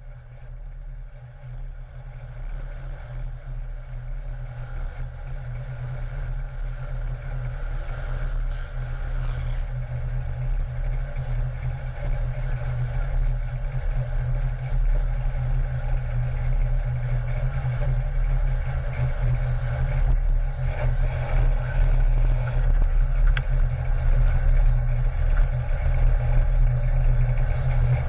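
Race car's engine idling with a deep, fluttering rumble, heard from a camera mounted low on the car's side, growing steadily louder throughout.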